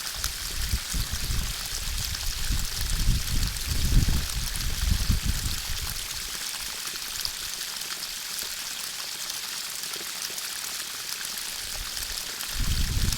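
A steady high rushing hiss. Gusts of wind buffet the microphone with a low rumble through the first half, ease off, then pick up again near the end.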